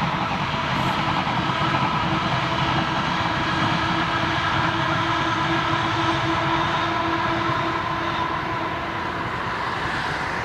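Two coupled ScotRail Class 380 (Siemens Desiro) electric multiple units running past, a continuous rolling rumble with steady motor tones held over it.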